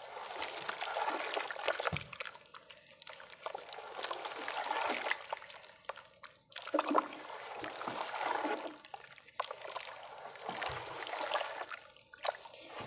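Hands squeezing and kneading a thick, wet slurry of marble powder and water: squelching and sloshing with bubbly trickles and small wet clicks, rising and falling in repeated swells.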